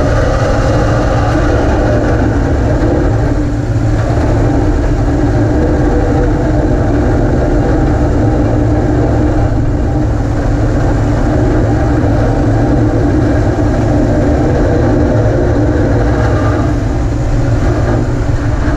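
Snowplow truck running steadily under load, its diesel engine rumbling along with the rush of snow being pushed and thrown as its underbody grader blade clears the road.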